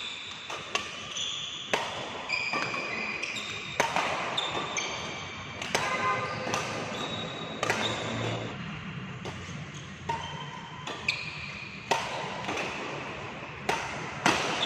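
Badminton rally: rackets hitting the shuttlecock about every one to two seconds, with short high squeaks from shoes on the court floor between the hits.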